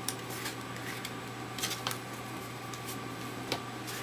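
Trading cards being handled and flipped through, giving a few soft, scattered clicks and slides over a steady low hum.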